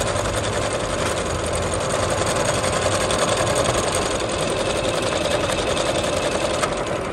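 Jaguar CD-2204W computerized sewing machine running continuously, stitching a decorative pattern in a steady rapid clatter of needle strokes, then stopping at the end.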